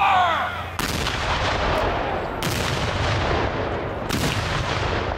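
Black-powder field cannons firing: three heavy reports about a second and a half apart, each with a long rolling echo.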